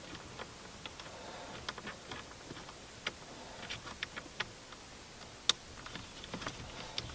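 Small, irregular metallic clicks and taps of hex bolts and nuts being fitted to a steering ball's clamp on a steering wheel, as a bolt is started into its thread; one sharper click about five and a half seconds in.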